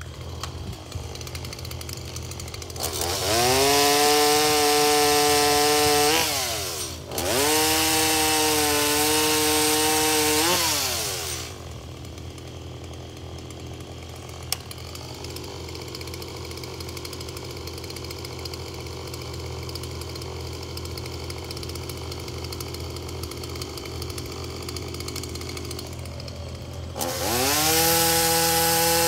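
Stihl MS 170 two-stroke chainsaw revved to full speed cutting oak limbs: two cuts a few seconds in with a short dip between them, then dropping back for a long stretch, and running up to full speed again near the end. A mini excavator's engine runs steadily underneath.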